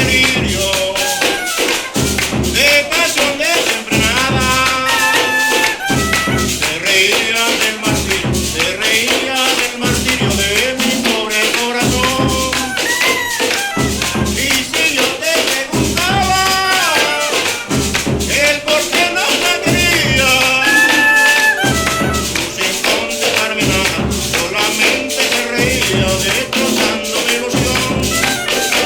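Electronic beat music with an Afro-Latin groove: a steady bass kick under fast shaker and tambourine-like percussion, with sung vocal phrases coming in every few seconds.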